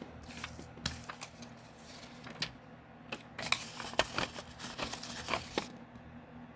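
Paper lottery tickets being handled: rustling and crinkling with many short, sharp crackles, busiest in the second half.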